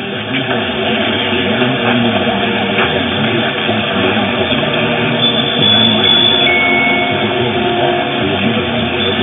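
Distant AM broadcast station on 1330 kHz received transatlantic on a software-defined radio in lower-sideband mode. Music with guitar sits under heavy static and interference, with audio cut off above about 4 kHz. Thin interference whistles come and go around the middle.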